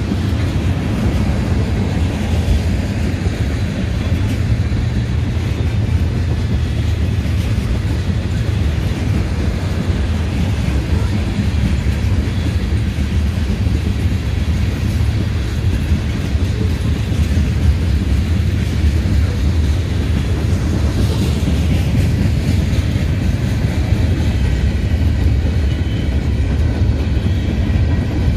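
Freight train cars (tank cars, covered hoppers and gondolas) rolling steadily past, their steel wheels on the rails making a loud, continuous low rumble.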